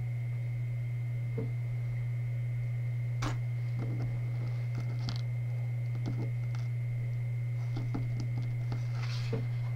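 Faint scattered clicks of small plastic flatback embellishments being picked through by fingers on a craft mat, over a steady low hum and a faint high steady tone.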